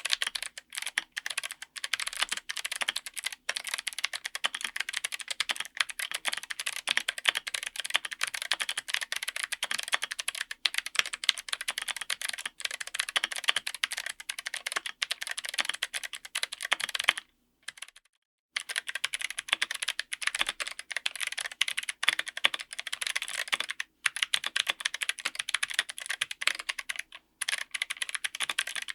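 Fast, continuous typing on a mechanical keyboard: a dense run of sharp keystroke clicks. It breaks off for about a second roughly 17 seconds in, then picks up again.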